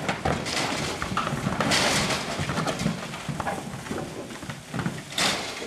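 Highland cattle hooves clattering and knocking on a livestock trailer's slatted ramp as the animals walk down and out, in irregular knocks with a couple of louder noisy rushes.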